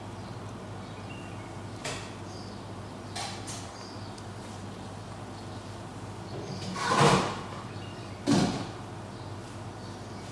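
Kitchen handling sounds: a few scrapes and knocks, the two loudest in the second half, over a steady low hum.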